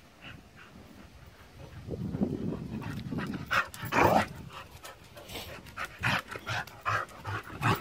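Entlebucher mountain dog panting after a run, with a few short, louder sounds, the loudest about four seconds in.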